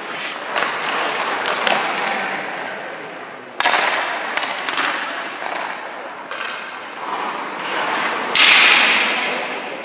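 Hockey skates cutting and scraping on the ice, with sticks and pucks knocking in a large echoing rink. There are two sharp, loud hits, about three and a half and eight and a half seconds in, each trailing off over about a second.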